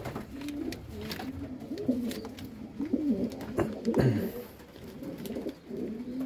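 Domestic racing pigeons cooing, repeated low wavering coos, with scattered knocks and rustles as a straw nest bowl is lifted out of a nest box.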